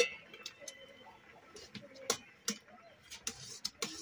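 Fingers scooping rice against stainless steel plates and bowls while eating by hand: scattered sharp clicks and clinks of metal, about half a dozen, with a short faint ring just after the start.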